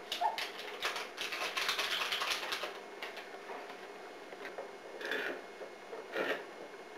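Rapid clicking and clattering of kitchen utensils against a mixing bowl for about three seconds, then two short knocks near the end.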